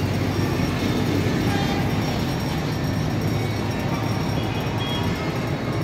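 Steady low rumble of an approaching passenger train hauled by a D19E diesel-electric locomotive, mixed with the hum of waiting road traffic.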